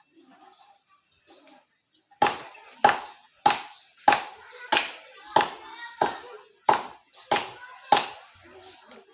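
A coconut palm trunk being chopped by hand with a blade: about eleven sharp, evenly spaced blows, roughly one and a half a second, starting about two seconds in. Each blow has a short ringing tail.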